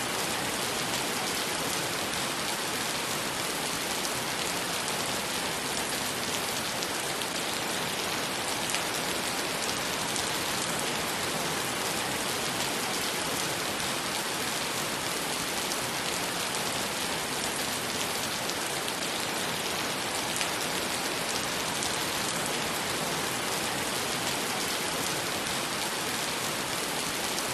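Steady rain pouring onto wet pavement, an even, dense patter of drops splashing on the hard surface.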